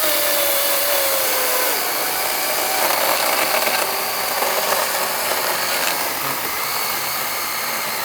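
Kobalt 24-volt cordless electric chainsaw running and cutting wood: a steady, loud whir and chain rasp, with the motor's whine dropping slightly in pitch over the first two seconds.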